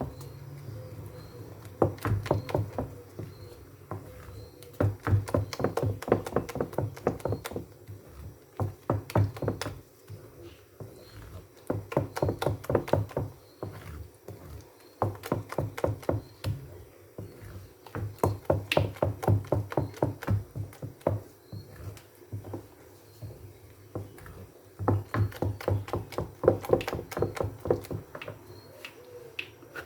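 Moi-moi batter of blended beans being beaten by hand in a bowl to mix in a raw egg: spells of quick repeated knocking strokes, several a second, broken by short pauses.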